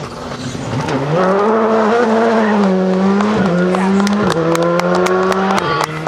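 Škoda Fabia R5 rally car's turbocharged four-cylinder engine revving hard as the car drives past. Its pitch drops sharply about three times at the gear changes. A run of sharp cracks comes near the end.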